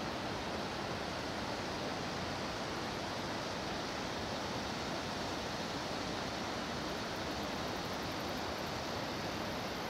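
Steady rushing of white water spilling over a low dam on the river, an even noise that does not change.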